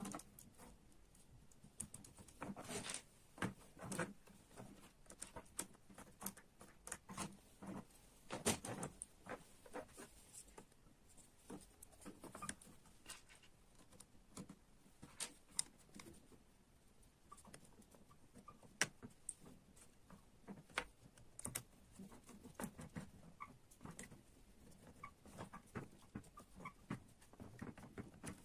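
Small parts of a model construction kit being handled and fitted together by hand: scattered light clicks, taps and rattles at an irregular pace.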